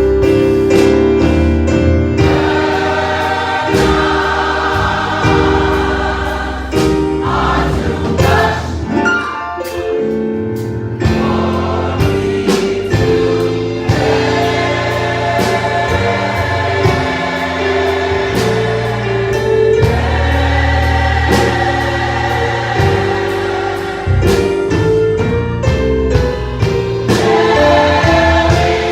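Choir singing a gospel song in harmony over keyboard accompaniment.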